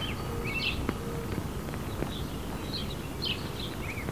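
Small birds chirping: short, high calls repeated about once or twice a second over a steady low rumble of background noise.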